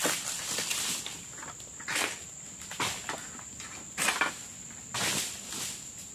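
Insects droning steadily at a high pitch, with short rustling noises about every second, at their loudest near the start and about four seconds in.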